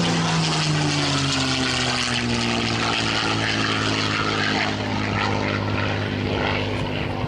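P-51D Mustang's Packard Merlin V-12 engine on a flypast. Its pitch falls over the first two seconds or so as the aircraft passes, then it runs on at a steady note.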